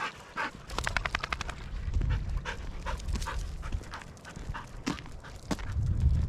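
A dog panting, with a fast run of short breaths about a second in, over low rumbling.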